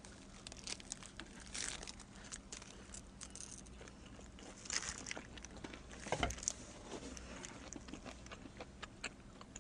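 Quiet eating: biting into and chewing a slice of pepperoni-and-pineapple pizza, with faint crinkles from a plastic glove and small scattered clicks. A soft thump comes about six seconds in.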